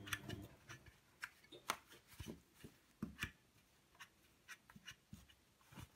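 Dry cloth wiped over a plastic wall socket and tiles, giving faint rubbing with scattered light clicks at irregular intervals.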